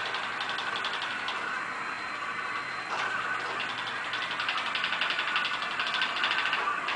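iRobot Create robot's drive motors and wheels whirring with a fast, even rattle as it rolls along a taped path. The sound thins for about a second and a half soon after the start, then picks up again after a click about three seconds in.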